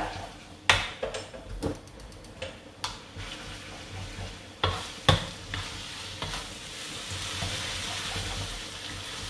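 Wooden spatula stirring and tossing fried rice vermicelli in a metal wok, with several sharp knocks against the pan in the first five seconds and a steady sizzle of the frying noodles that builds in the second half.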